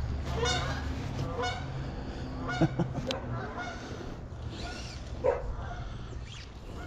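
Canada goose honking in flight: a series of honks about one a second at first, then more spaced out.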